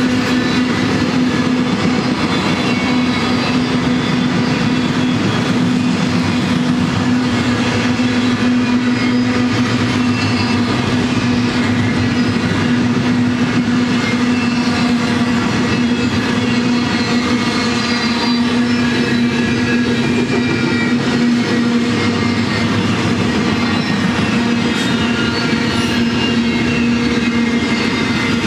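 Double-stack intermodal train of loaded container well cars rolling past: the steady run of steel wheels on the rails and the cars rattling, with a steady hum.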